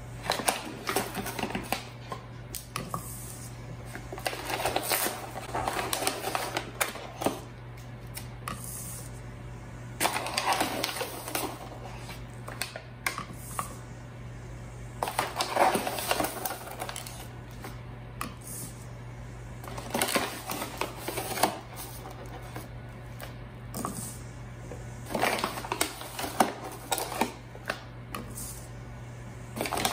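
Granulated sugar poured scoop by scoop from a small metal measuring cup into a plastic funnel in a plastic gallon jug: a grainy pouring hiss with clicks and scrapes of the metal cup against the funnel and sugar bag. The pours come in bursts about every five seconds.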